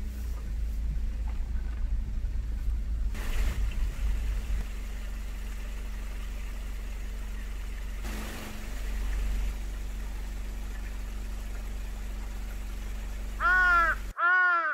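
Low rumble of a car driving slowly on a gravel forest road, then a mountain stream flowing steadily. Near the end a crow caws twice, loud and harsh.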